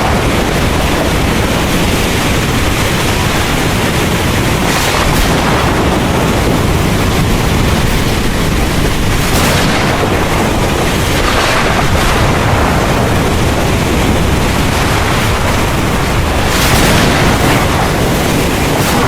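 Heavy rain pouring steadily, with a deep low rumble of thunder underneath and a few brief swells in the hiss.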